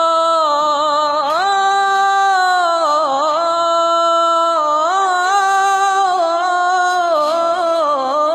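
A young man's unaccompanied voice singing an Arabic religious ibtihal, stretching one word across long held notes. The notes glide up and down with many small ornaments.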